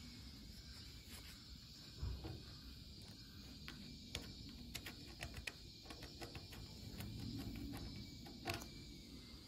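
Faint, scattered sharp clicks and small scrapes of a hooked metal pick working the paint edge around a bolt hole in a painted steel engine lid, over a steady high hum.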